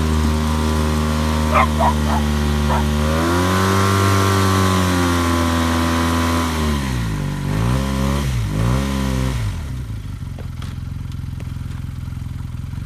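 Off-road vehicle's engine driving through mud. It revs up about three seconds in and holds, then drops with a few quick rises and falls, and grows quieter about ten seconds in. A few short high yelps come near two seconds in.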